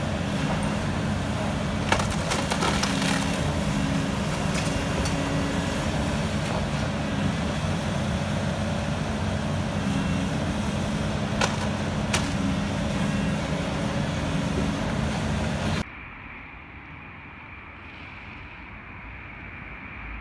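Diesel engine of a Volvo demolition excavator running steadily under load while it pulls down a brick building, with a few sharp knocks and cracks of brick and debris. About sixteen seconds in, the sound drops suddenly to a much quieter steady hum with a faint high whine.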